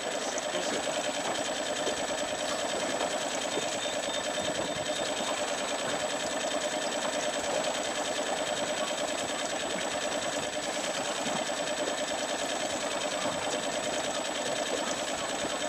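Boat's outboard motor running steadily, a continuous even mechanical hum with a thin steady high tone over it.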